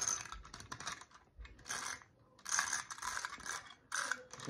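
The clockwork mechanism of a wind-up Space Explorer robot-and-cart toy being wound by hand: ratcheting clicks in repeated bursts of half a second to a second, with short pauses between.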